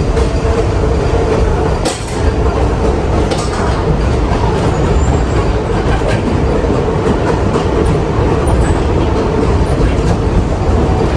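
R62 subway car running along the track, heard from inside the car: a steady rumble with a faint hum, and sharp clicks of the wheels over rail joints about two and three seconds in.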